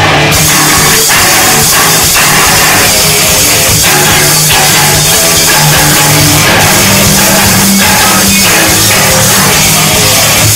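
Live heavy rock band playing at full volume: electric bass and guitars holding low riff notes over a drum kit's steady hits.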